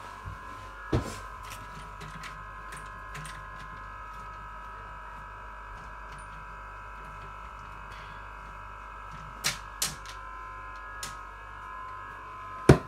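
A steady high hum with a low rumble under it, broken by a few sharp clicks and knocks of the handheld phone being handled: one about a second in, two close together past the middle, and the loudest just before the end.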